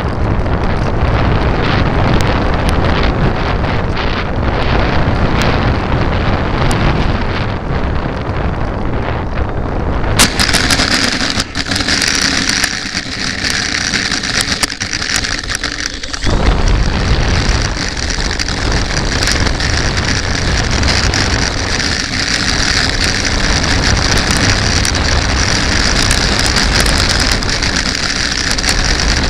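Onboard sound of a radio-controlled model Cessna Corvalis. Steady rushing air and motor noise come first in low flight. About ten seconds in a sudden bump marks touchdown on asphalt, after which a steady high motor whine runs on with rumbling as the plane rolls on the pavement.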